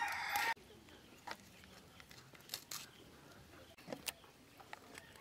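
A rooster's crow ends about half a second in. After it come short, scattered scraping clicks as a climbing perch is scaled against the blade of a bonti.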